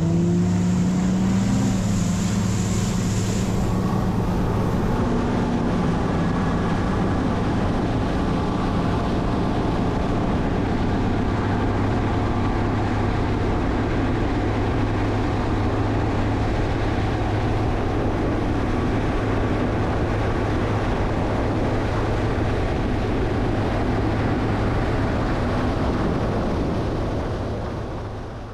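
Boat's outboard motor running steadily at speed, with wind and water noise, fading out near the end.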